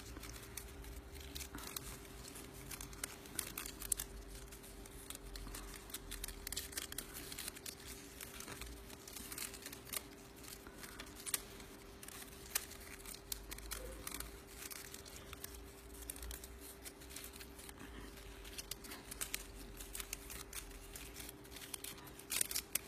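Fringed cardstock strip rustling and crinkling as it is rolled up tightly by hand, with many small irregular clicks and rustles. A faint steady hum runs underneath.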